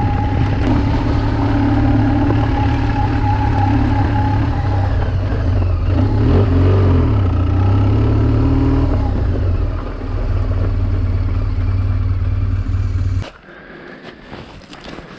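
BMW R1200GS flat-twin motorcycle engine running steadily under way, its pitch briefly wavering about halfway through. The sound stops abruptly near the end, leaving only faint scrapes.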